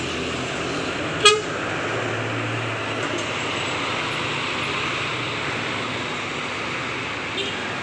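A bus running through a U-turn amid steady road traffic noise, with one short, sharp horn toot about a second in.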